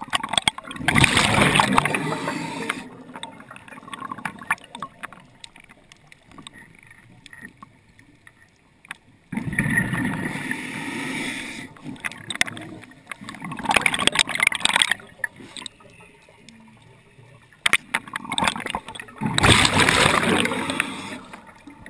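Muffled water noise heard through an underwater camera housing: four surges of rushing and gurgling a few seconds apart, with quieter water hiss between them.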